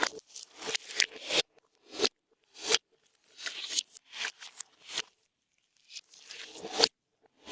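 Hands kneading and squishing slime as makeup is mixed into it, a string of short sticky squishing sounds with brief pauses and a longer gap a little past the middle.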